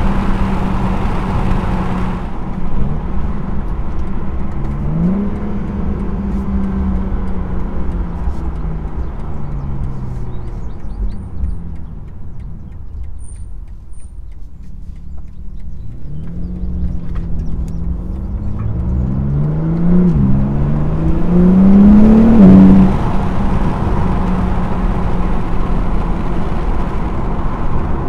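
BMW G80 M3's twin-turbo inline-six under way. It runs steadily, eases off and goes quieter in the middle, then revs up in several rising pulls to its loudest about two-thirds of the way through, and settles back to a steady drone.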